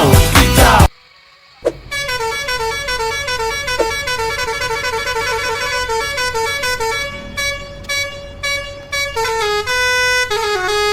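Loud pop music cuts off just under a second in. After a short pause, a bus 'telolet' horn, the multi-tone musical air horn of Indonesian tour buses, plays a quick stepping melody of short notes, ending on a few falling notes and a long held tone.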